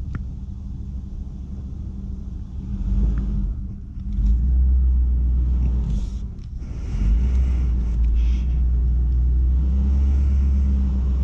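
A motor vehicle engine rumbling low and steady, heard from inside a car's cabin. It gets louder about three and four seconds in and again about seven seconds in.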